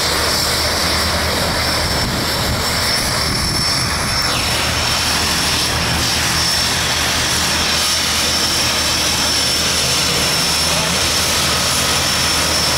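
Propeller airplane engine running steadily, a low hum under a constant high whine that rises in pitch right at the end.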